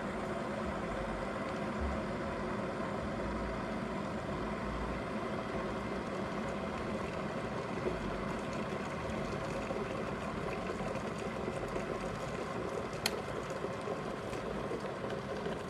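Chefman electric kettle heating water near the boil: a steady rushing noise, with one sharp click near the end.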